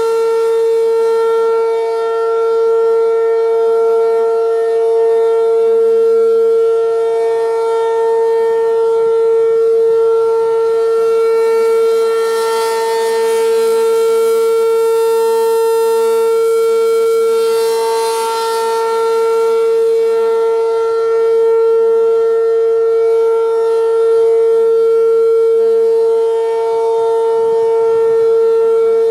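ACA P-15 rotating outdoor warning siren sounding a steady, constant-pitch tornado drill tone. The sound swells and fades about every six seconds as the horn turns.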